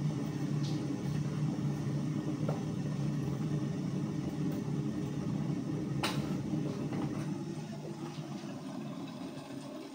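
Steady low rumble of a stovetop kettle heating water on the hob, easing a little near the end. A few light clicks of mugs and tea bags being handled on the counter, the sharpest about six seconds in.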